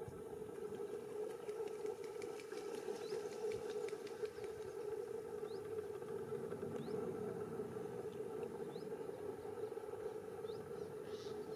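Outdoor wetland ambience: a steady hum with faint ticks, and about five faint, high, short rising chirps a second or two apart, like a small bird calling in the distance. It cuts off suddenly at the end.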